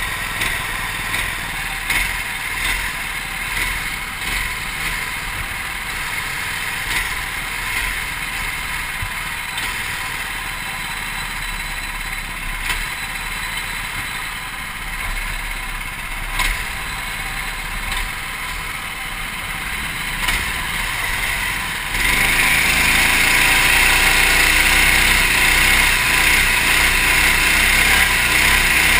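Go-kart engines running at low speed, uneven with scattered clicks and knocks. About 22 seconds in, the kart's own engine is opened up and revs hard: the sound jumps suddenly louder, with a rising whine.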